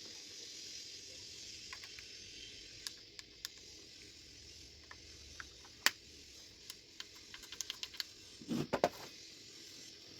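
Scattered small plastic clicks and taps over a steady hiss, the sharpest about six seconds in, then a quick run of clicks and two duller knocks near the end: a small wet/dry vacuum remote control being handled as its battery is fitted.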